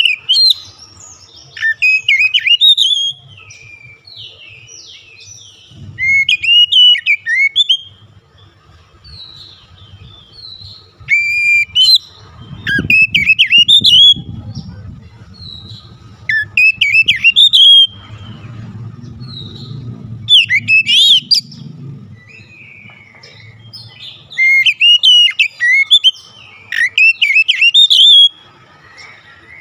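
Oriental magpie-robin singing loudly in about six bursts of rapid, varied whistled phrases with slurred, sliding notes, each burst a second to a few seconds long with short pauses between.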